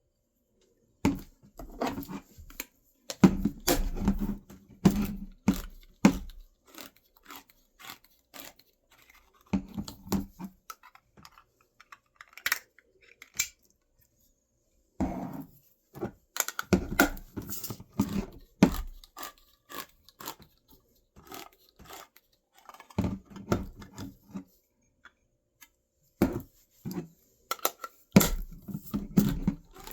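Handling noises while cooking: irregular knocks, clatter and rustling in short bursts, with gaps of silence between them.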